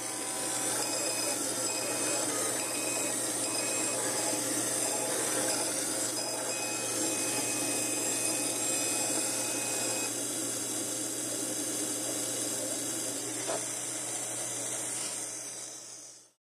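Laser cutter running: a steady fan hiss and low hum, with short high whines repeating during the first few seconds and a longer one in the middle as the cutting head moves. The sound fades out near the end.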